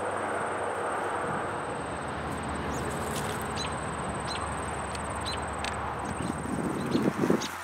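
Outdoor ambience: a steady rush of wind or handling noise, a thin steady high-pitched whine, and scattered short, high bird chirps that come more often toward the end. A brief louder rustle comes about seven seconds in.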